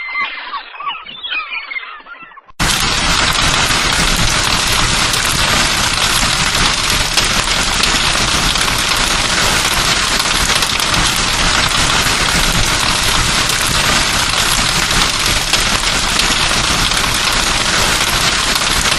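Heavy rain: a loud, dense, steady downpour with a fine crackle of drops. It starts abruptly about two and a half seconds in, cutting off the end of some bird-like calls.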